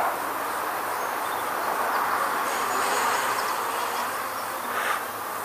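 Eachine E70 Mini micro quadcopter in flight, its small motors and propellers giving a steady buzz with a faintly wavering pitch.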